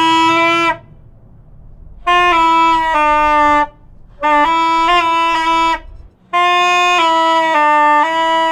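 Saxophone blown in long held notes: a blast that stops just under a second in, then three more of about one and a half to three seconds with short gaps, the pitch stepping between a few notes within each. The horn is loaded with hot charcoal and is being blown to push air through the coals.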